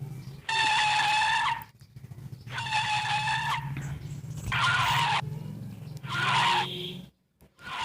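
Car braking sound effect: tyres screeching under hard braking. There are four squeals of steady pitch: the first two last about a second each, the last two are shorter. A steady low hum runs underneath.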